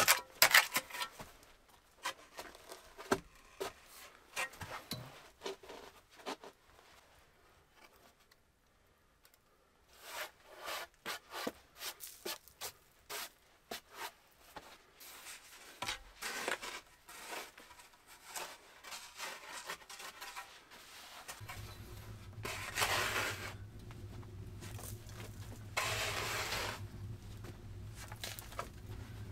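A small shovel scraping soil on an earthen floor, with scattered scrapes and knocks as split-log floor planks are handled. Later a steady low hum comes in, and there are a few loud scraping swishes of a shovel moving dirt.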